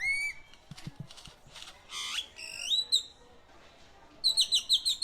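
Great-tailed grackle calling: a few sharp rising whistles, then a quick run of about seven repeated notes near the end.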